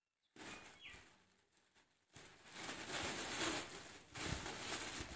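Clear plastic bags rustling and crinkling as they are handled and opened, louder and busier in the second half.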